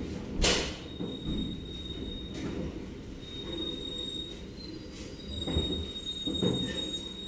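Passenger train coach braking slowly into a station: a steady high-pitched squeal from the wheels and brakes over the low rumble of the carriage, with a loud knock about half a second in and two softer thumps near the end.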